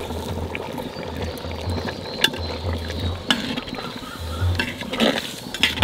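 Metal spatula stirring a jackfruit, potato and tomato curry in a clay pot, with scattered scraping clicks against the pot.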